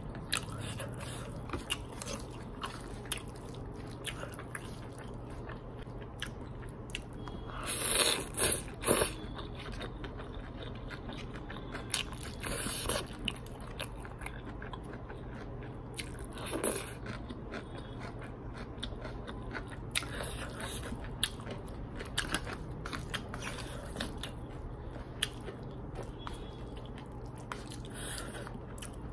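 Close-up eating sounds: a person chewing hakka noodles and chili chicken, with small wet clicks throughout and a few louder short bursts about eight, twelve, seventeen and twenty seconds in.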